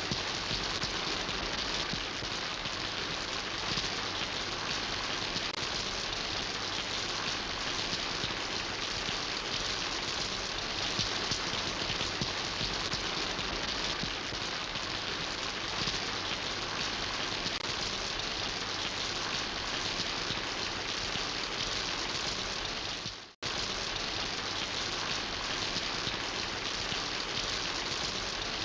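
Steady rain falling, a dense, even hiss of many drops with no single loud splashes. It fades out abruptly for a split second about 23 seconds in and then resumes.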